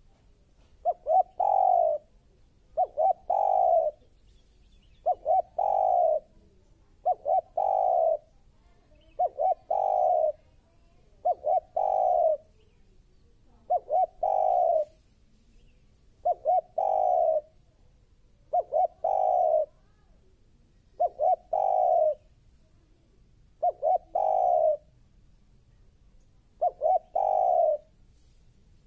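Spotted dove cooing. Each phrase is two or three quick short notes followed by one longer coo, and the phrase repeats about every two seconds.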